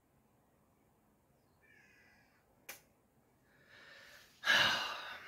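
A man's loud sigh, an audible exhale that starts about four and a half seconds in and fades away, preceded by a single sharp click near the middle; otherwise very quiet room.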